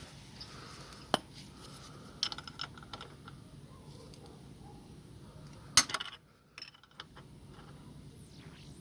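Metal clicks and clinks of spanners on a homemade puller as it draws the clutch plate off a car AC compressor. There is a sharp click about a second in, a cluster of clinks just after two seconds, and the loudest clink near six seconds.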